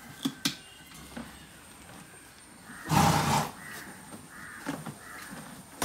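A horse snorts once about three seconds in: a short, loud blow through the nostrils. A few faint clicks come before it.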